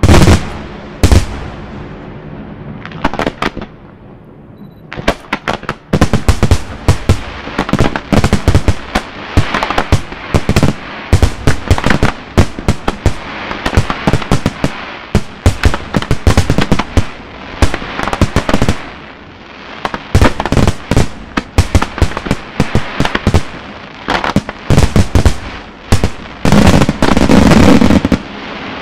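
Italian-style aerial firework shells bursting. A few separate bangs come first, then from about six seconds in a dense, rapid run of bangs, heaviest near the end.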